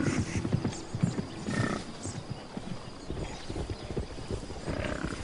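A herd of hoofed animals on the move, hooves thudding and clattering irregularly, with a few short, high calls from the animals.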